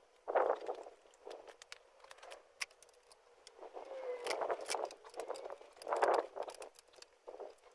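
Clinks, rattles and scrapes of hand tools and small metal parts as a scooter is being taken apart, in a string of irregular short clicks with a few louder handling noises.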